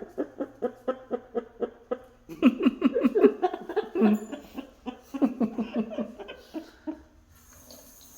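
Rapid, hearty laughter: quick ha-ha pulses about five a second, in three runs, dying away about seven seconds in.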